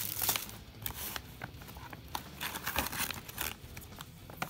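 Plastic ration pouch rustling and a foil-wrapped packet crinkling as hands rummage inside the pouch and pull the packet out, in irregular short crackles.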